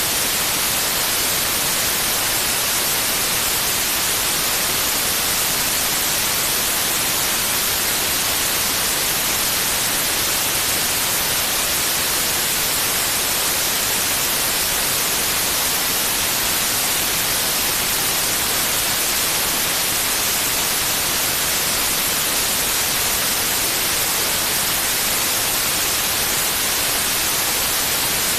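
White noise: a steady, even hiss at constant level, with no changes or other sounds.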